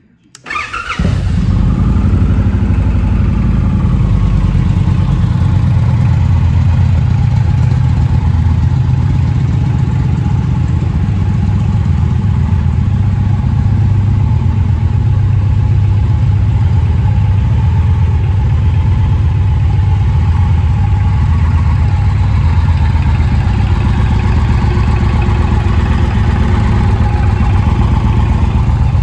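A 2020 Indian Challenger Dark Horse's liquid-cooled PowerPlus V-twin is started up, rising briefly as it catches, and then settles into a steady, loud idle.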